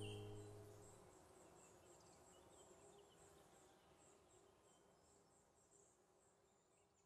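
The last acoustic guitar chord rings out and fades away within the first second, leaving near silence with a faint, even run of high chirps, about three a second.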